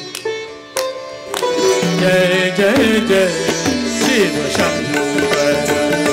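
Live Hindustani classical ensemble music: a few sharp drum strokes in the first second and a half, then sitar playing sliding and held notes over tabla.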